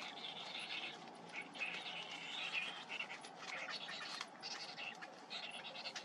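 Cinnamon bittern chicks begging with rapid chattering calls while being fed at the nest, over a steady high background hum of insects.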